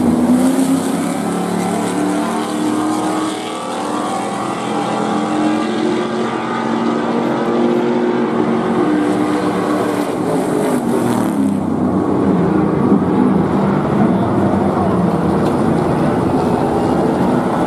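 Stadium Super Truck race engines at full throttle, passing and accelerating through a corner, their pitch rising and falling continuously.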